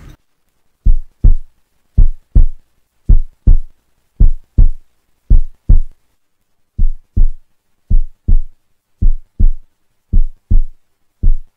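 Heartbeat sound effect: paired deep thumps, lub-dub, repeating about once a second with silence between the pairs.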